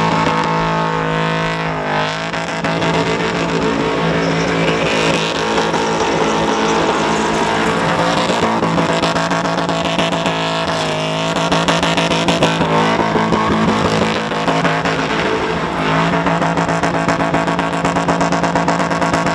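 Holden Commodore engine held at high revs through a burnout, rear tyres spinning in thick smoke. The revs dip and climb again about two seconds in and around ten seconds in.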